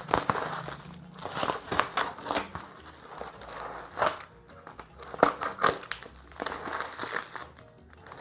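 Plastic bubble-wrap packaging crinkling and rustling in short, irregular bursts with sharp crackles as it is handled and cut open.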